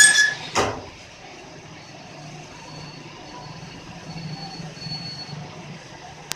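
Lathe running with a steady low hum after a loud, high-pitched ringing cut stops just after the start, with one short burst about half a second in. A sharp click comes near the end.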